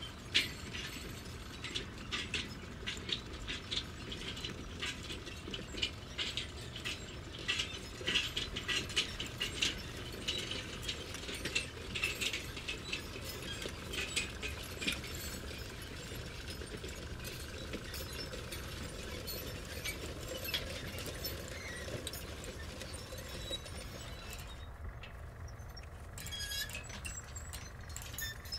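Construction site ambience: dense, irregular metallic clicks and clinks over a steady low rumble, thinning out near the end.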